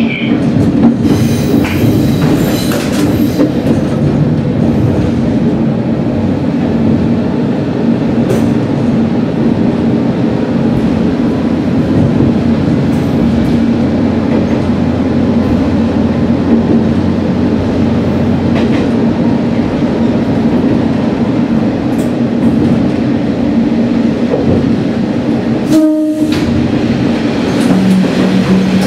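Diesel railcar running along the line, heard from the cab: a steady engine drone over the rumble and clack of the wheels on the rails. The sound changes near the end as the train enters a tunnel.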